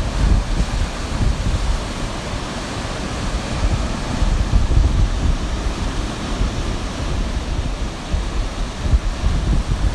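Wind buffeting the microphone in a gusting low rumble over the steady hiss of ocean surf.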